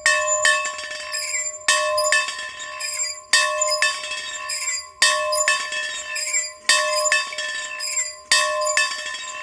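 A bell rung over and over in a steady rhythm: pairs of strokes, about half a second apart, roughly every second and a half to two seconds, each stroke ringing on into the next.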